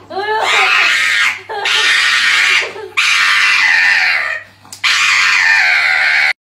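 A pug screaming: four long, loud, shrill screams in a row while its paw is held, cut off suddenly near the end.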